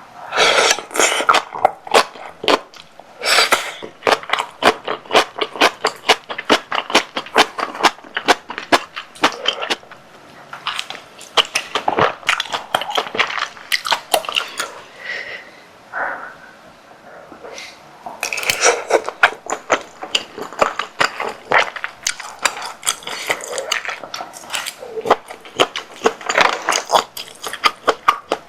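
Close-miked eating sounds: chewing tteokbokki with rapid, irregular wet mouth clicks and smacks, easing off briefly a little past halfway before picking up again.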